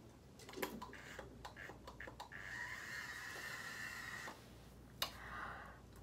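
Faint handling of a curling wand as hair is wound around it: a run of light clicks and taps, then a soft hiss for about two seconds, and a sharp click about five seconds in followed by a shorter hiss.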